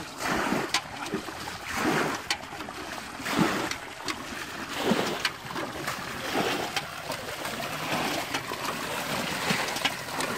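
Muddy water scooped with a metal pot and poured out in repeated splashes, about one every second and a half, over water running into a woven basket fish trap where small fish are flapping and splashing.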